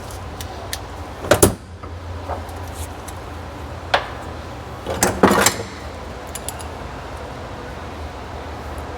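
Clanks and knocks of tools and metal parts being handled while taking a Humvee body apart: a sharp knock about a second and a half in, another at four seconds, and a short cluster of knocks around five seconds, over a steady low hum.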